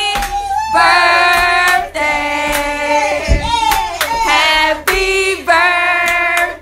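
A group of voices singing together in long held notes, with hands clapping along in time.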